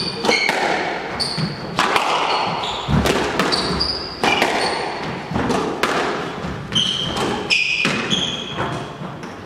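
Squash rally: the ball cracks off the rackets and walls about once or twice a second, while the players' shoes squeak on the hardwood court.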